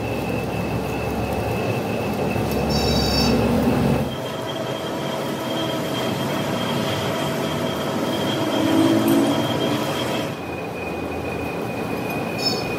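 Metal lathe cutting a steel shaft: steady machine noise with a high, steady whine from the cutting tool, which jumps a little higher about four seconds in and drops back near the end.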